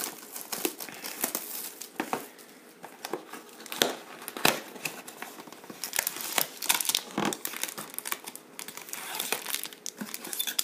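Plastic shrink wrap crinkling and tearing as it is stripped off a cardboard box of trading cards, and foil card packs crinkling as they are taken out of the box, with a few sharper clicks.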